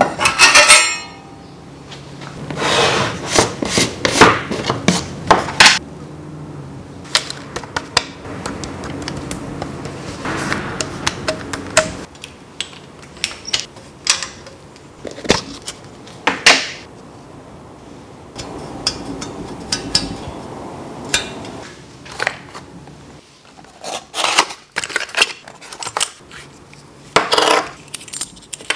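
Bicycle frame, fork and headset parts being handled, fitted and set down on a workbench: scattered metallic clinks, knocks and light rattles at irregular intervals, with softer handling noise between them.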